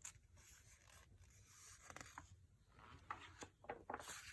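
Near silence, with faint scraping and rustling and a few soft clicks.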